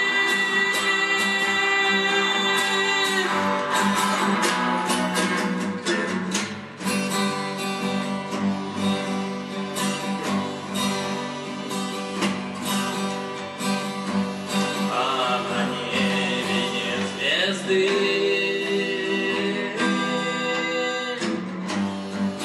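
A strummed acoustic guitar with an electric guitar, and a man singing a held note at the start. After about three seconds a harmonica plays over the guitars for the rest of the passage.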